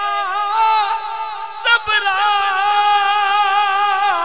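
A man's voice singing devotional Punjabi verse, drawing out long wavering notes that bend between pitches. A short knock sounds near the middle.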